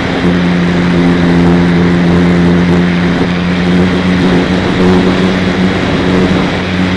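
Engine and propeller of a small powered parachute running steadily in flight, an even drone with a strong low hum, with a rush of wind noise over it.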